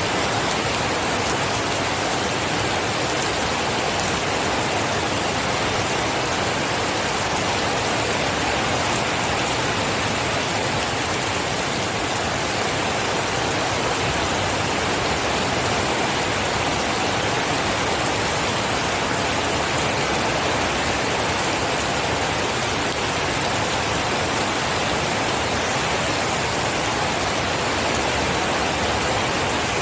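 Steady heavy rain falling without a break.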